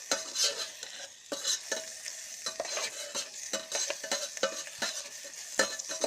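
Onion and spice masala sizzling in hot oil in an electric kettle, stirred with a spoon that scrapes and taps against the pot again and again.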